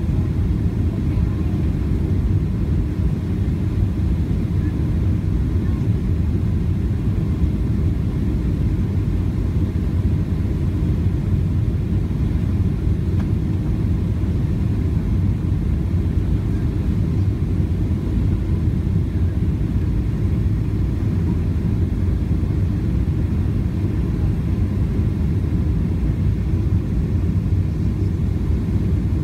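Steady low rumble of engine and airflow noise inside an airliner cabin during the landing approach.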